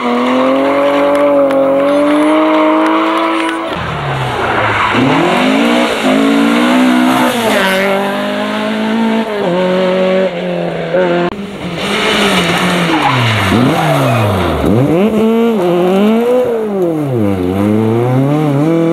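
Rear-wheel-drive rally car engines revving hard in turn, climbing and dropping in pitch again and again through gear changes and lifts, with tyres squealing.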